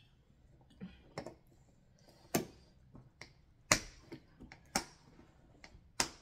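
A small metal spoon clinking against a ceramic bowl and plate: sharp clinks about once a second, five louder ones with lighter taps between.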